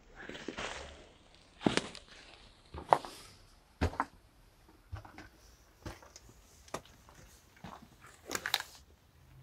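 Footsteps crunching on broken brick and grit, about one step a second and unevenly spaced.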